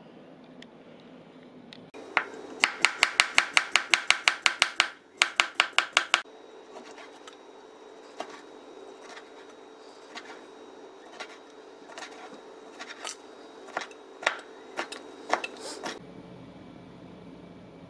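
Kitchen knife chopping on a cutting board. First comes a fast, even run of about five strokes a second for about four seconds, then slower, uneven cuts as it slices boiled octopus. The chopping stops near the end, leaving a faint steady background hiss.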